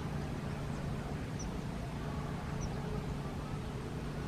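Steady low outdoor rumble, with three short, high bird chirps about a second apart.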